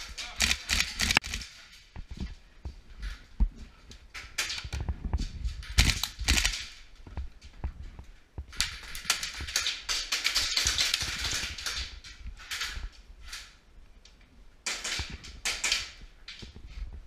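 Airsoft gunfire in an indoor arena: sharp clacking shots in scattered short clusters.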